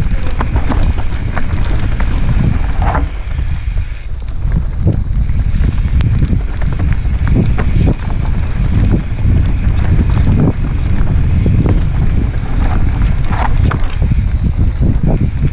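Mountain bike ridden fast down dirt singletrack: the bike clattering and tyres knocking over roots and rocks in many short, irregular knocks, over a steady wind rumble on a helmet-mounted GoPro's microphone.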